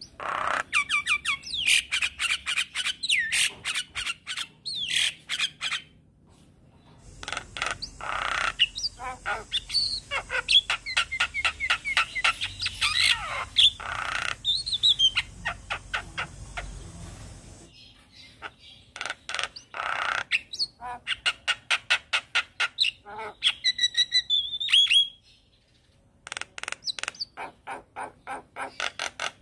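Javan myna singing: long rapid strings of sharp, clicking and chattering notes mixed with whistled calls, in several bursts with short pauses between them.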